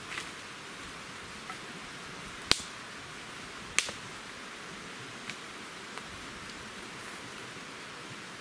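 Dry sticks snapping as firewood is gathered and broken: two loud, sharp cracks a little over a second apart in the middle, with a few fainter snaps around them, over a steady background hiss.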